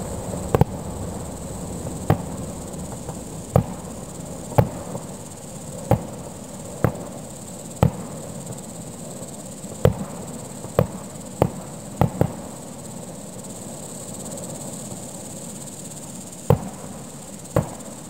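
Fireworks shells bursting about 2 km away: some fourteen sharp bangs at uneven intervals, with a gap of a few seconds before the last two. Under them runs a steady high chirring of insects.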